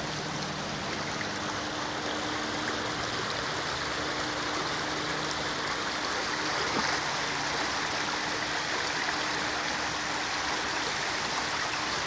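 Shallow mountain river rushing steadily over a stony bed. A faint low hum runs underneath for most of it.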